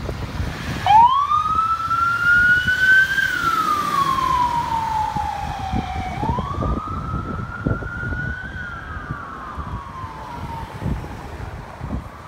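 Siren of an FDNY battalion chief's pickup truck, switched on about a second in and sounding a slow wail: two long rises and falls in pitch. It grows fainter as the truck drives away, over a low rumbling noise.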